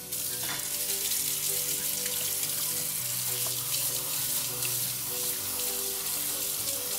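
Tap water running steadily into a sink, as quinoa is rinsed under running water, over quiet background music.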